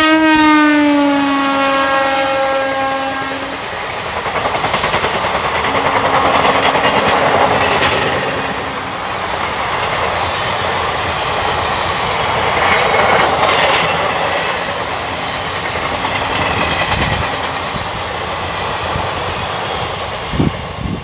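Electric passenger train passing at speed: the locomotive's horn sounds as it goes by, dropping in pitch, and holds for about three seconds. Then a long rake of coaches rushes past with the clatter of wheels over the rail joints.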